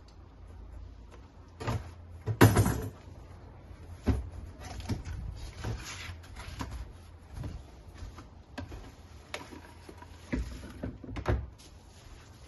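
Cardboard box and packaging being opened and the strimmer's parts handled: irregular knocks, scrapes and rustles, the loudest a clatter about two and a half seconds in.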